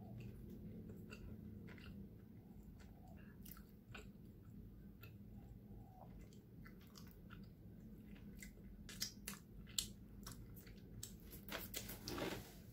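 Faint chewing of a soft cinnamon roll with the mouth closed: scattered small wet mouth clicks, thicker and a little louder in the last few seconds.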